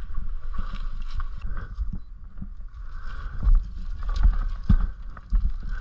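Irregular knocks, thumps and rustling over a steady hiss: an e-mountain bike being worked through dense brush.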